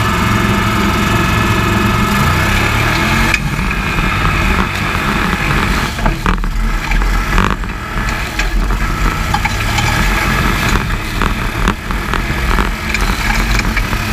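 Formula offroad buggy's engine running hard at high revs, heard from inside the open cockpit. After about three seconds water spray starts rushing over the car with knocks and splatter, and the engine sound turns rough and uneven.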